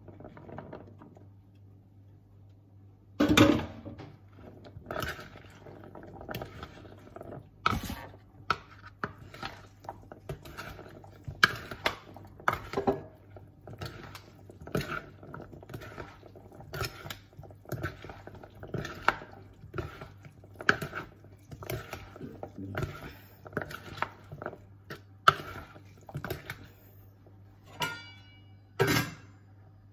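A utensil knocking and scraping against a large mixing bowl while chickpea salad is stirred, about once a second. A louder clatter comes about three seconds in.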